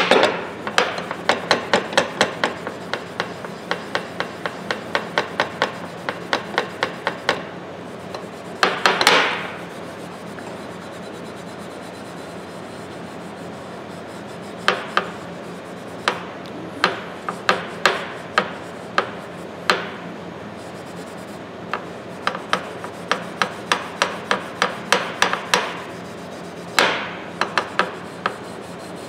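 0000 steel wool scrubbing the cold-blued steel of a pair of tongue-and-groove pliers in quick back-and-forth strokes, about three a second, in runs broken by a pause of a few seconds midway. The buffing evens out the patchy colour of fresh cold bluing.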